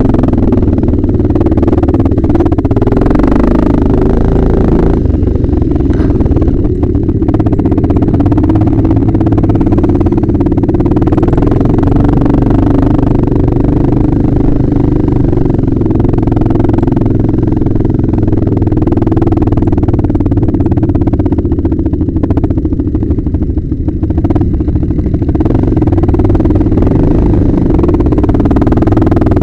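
Yamaha Raptor 660 quad's single-cylinder four-stroke engine running loud and steady under way on a dirt trail, with the revs shifting a little as it rides.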